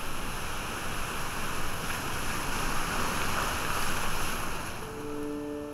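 Small waves washing steadily onto a pebble beach, a soft continuous surf. Gentle piano notes come in near the end.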